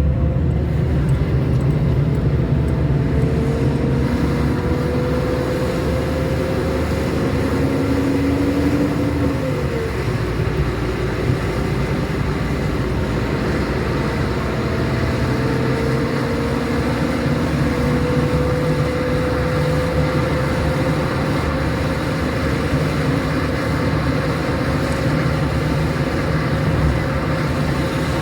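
Car driving on the road: a steady low rumble of engine and tyres, with an engine note that rises slowly, drops about nine seconds in, and rises again.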